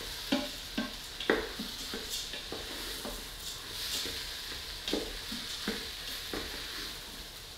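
Wooden spoon stirring arborio rice with mushrooms and onions in an Instant Pot on sauté, toasting the rice until it turns translucent: a steady sizzle with scrapes and knocks of the spoon against the pot, about two a second.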